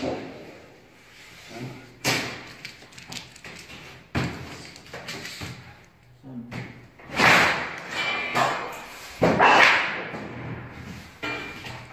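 Hand lever sheet-metal shear and thin sheet metal being worked: sharp clanks about two and four seconds in, then two longer, louder metallic rattles with a faint ring.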